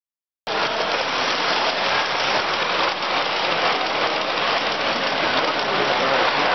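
O gauge model passenger train running over a bridge on a layout, a steady rushing rumble of metal wheels on track that cuts in suddenly about half a second in.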